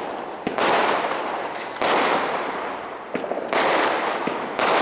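Aerial firework shells bursting overhead: a series of sharp bangs, about one a second with a couple of smaller pops between, each dying away slowly.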